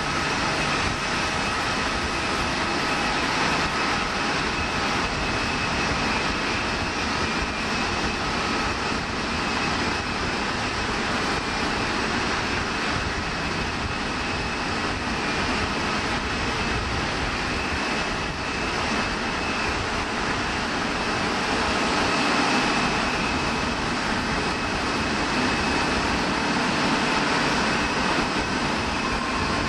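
Jet airliner engines running, a steady rush of noise with a thin, steady high whine, growing slightly louder about two-thirds of the way through.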